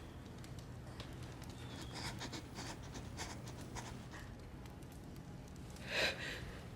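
Tense hush of people breathing and shifting quietly, with faint clicks and rustles, and a sharp breath or gasp about six seconds in.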